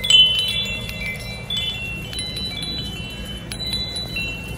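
Tubular wind chime struck and ringing sweetly: a loud cluster of clear high tones at the start, with more tubes chiming now and then as it swings and the ringing fades.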